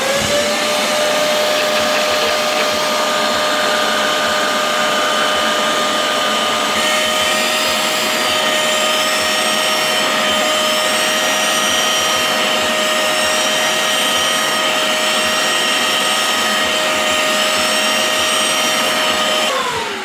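Hoover CleanSlate carpet and upholstery extractor (wet vacuum) switched on: its suction motor spins up and runs with a steady whine, then is switched off near the end and winds down. From about a third of the way in, a faint high whistle rises and falls over it in a regular cycle.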